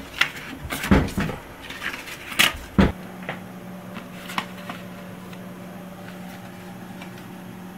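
Paper cards being pulled off a mirror and handled, with several sharp rustles and knocks over the first three seconds. After that, a steady low hum with a few faint clicks.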